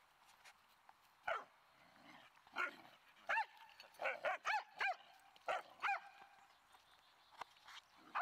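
A dog barking in short, high yips, about eight in all, several in quick succession in the middle.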